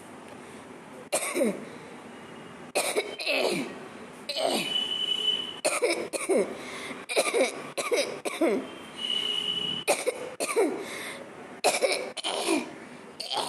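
A person coughing on purpose, over and over: about fifteen sharp, loud coughs in ones, twos and threes, each trailing off downward in pitch.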